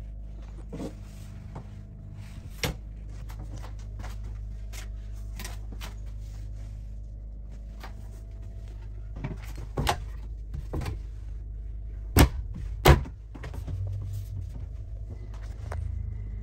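Scattered light clicks and knocks from handling in a small hard-walled bathroom over a steady low hum, with two sharp knocks about a second apart near the end.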